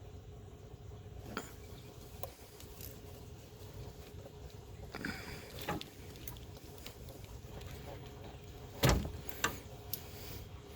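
Hand tools and car parts being handled while working on a radiator: scattered light clicks and knocks, a short scraping stretch midway, and one sharp metallic knock about nine seconds in, over a steady low hum.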